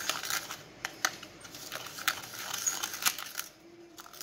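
A plastic spoon stirring a gritty paste of sugar and olive oil in a plastic cup: scraping with quick, uneven clicks and taps against the cup, easing off near the end.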